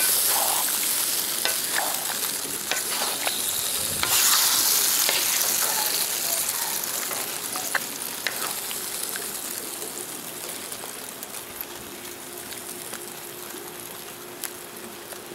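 Beef, onions and peppers sizzling in soy gravy in a hot iron wok while a wooden spoon stirs them, with a few light scrapes against the pan. The sizzle surges at the start and again about four seconds in, then slowly dies down.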